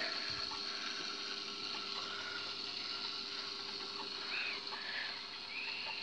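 Aquarium filter running: a steady trickle and splash of water over a faint low hum. A couple of faint short high chirps sound near the end.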